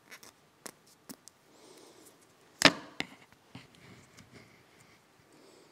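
Electrical tape being pulled off its roll: one short, sharp rip about two and a half seconds in, followed by a smaller one. Light clicks and rustles of hands handling the tape and wire leads come before and after.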